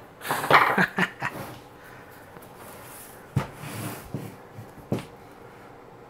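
Handling noises from a computer case and tools on a table: a short rustle with a breathy sound near the start, then two sharp clicks about a second and a half apart, with softer shuffling between them.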